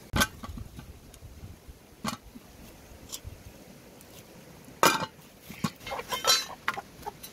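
A wood fire crackling with a few sharp pops, then a metal cooking pot clanking on the stones just before five seconds in, followed by a chicken squawking while it is held and handled.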